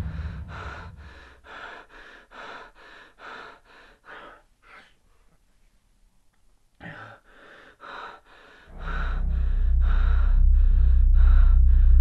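A woman breathing fast and hard in short gasps, about two or three breaths a second; the breaths fade away and stop for a second or two, then start again. About two-thirds of the way in, a loud, deep, low drone comes in and holds under the breathing.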